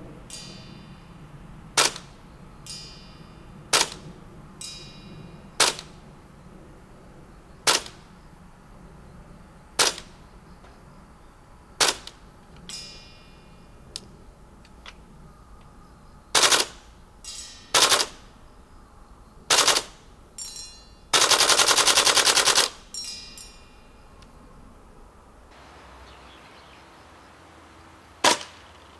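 Tokyo Marui CQBR Block 1 gas blowback airsoft rifle firing sharp single shots about every two seconds. Several shots are followed a moment later by the ringing ping of a BB striking a steel target plate. A little past the middle comes one full-auto burst lasting about a second and a half.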